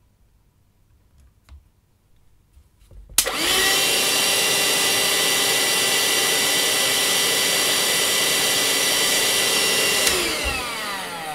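Parkside cordless handheld vacuum cleaner powered through a wired battery adapter, switched on a little after three seconds in and running with a steady whine. Near the end it is switched off and its motor spins down with falling pitch. A few faint clicks of wire connectors come before it starts.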